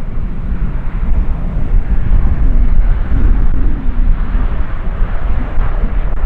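Boeing 777 jet engines rumbling as the airliner touches down and rolls out, the engine noise swelling from about two seconds in. Heavy wind buffeting on the microphone.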